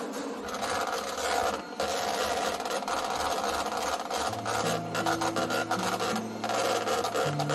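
Electric hand mixer running, its motor whirring and the beaters rattling as they whip a mixture in a bowl.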